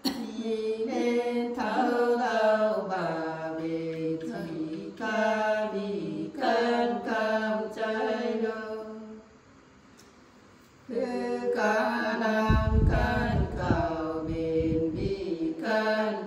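Women singing a Nùng folk song unaccompanied, in slow, drawn-out chant-like phrases with gliding pitch, pausing briefly a little past halfway before the next phrase. A low rumble sounds under the singing for a couple of seconds near the end.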